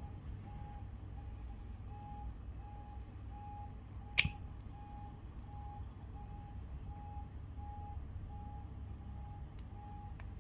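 A sharp click about four seconds in as the metal cap is pulled off a perfume bottle. Behind it, steady electronic beeping at one pitch, about two beeps a second.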